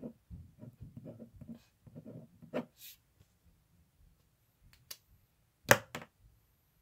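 Zebra F-301 ballpoint pen scratching on a paper sticky note in short strokes as a word is written and underlined. Near the end come two sharp knocks, the metal pen being set down on a hard desk, the first the louder.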